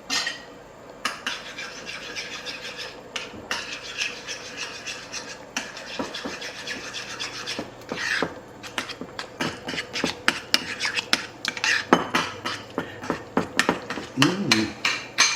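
Utensil stirring a yogurt, garlic, horseradish and mustard dip in a bowl, clinking and scraping against the bowl. The strokes are sparse at first and become quick and steady in the second half.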